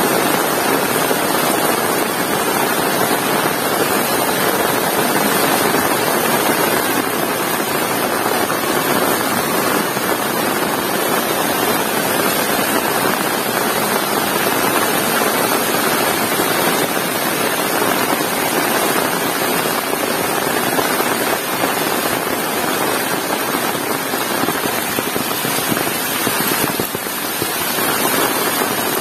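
Heavy rain pouring steadily, a dense even hiss that dips slightly for a moment near the end.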